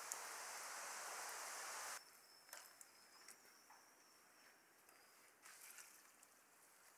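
A soapy wash mitt rubbing over wet car paint: a steady hiss that cuts off suddenly about two seconds in. After that it is near quiet, with a few faint light ticks and a faint thin high whine.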